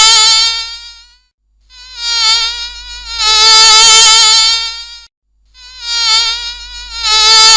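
Buzzing of a flying bee: a loud, slightly wavering drone that swells and fades in repeated passes, dropping out briefly about a second in and again about five seconds in.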